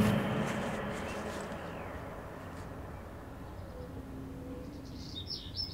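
Quiet background ambience as a fading swell of music dies away over the first couple of seconds, then a few faint bird chirps near the end.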